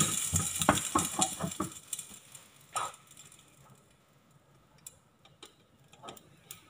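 Water sizzling and crackling in a hot, lidded frying pan as it turns to steam, fading out over about two seconds and leaving a few faint ticks.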